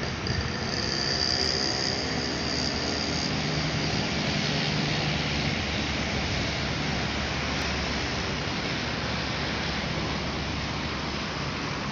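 Road traffic passing: a coach bus's engine and tyres going by over a steady rush of road noise, the engine hum loudest around the middle. A thin high whine sounds through the first few seconds.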